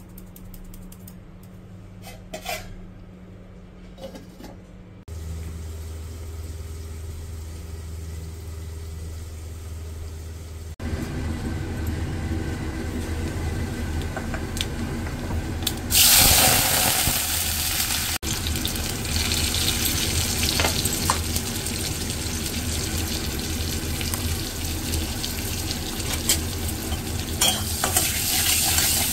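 Cooking in a kadai on a gas stove. Faint ticks at first, under a steady hum. Then hot oil sizzles, with a sudden loud burst of sizzling about halfway through, followed by steady frying and the scrape of a steel spatula stirring vegetable pieces in the oil.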